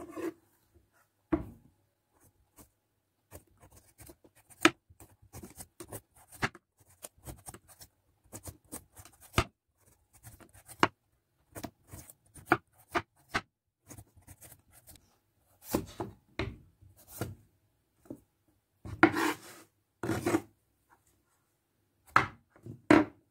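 A hand peeler scraping the green skin off a whole papaya: a run of short, irregular scraping strokes, louder and more frequent in the last few seconds.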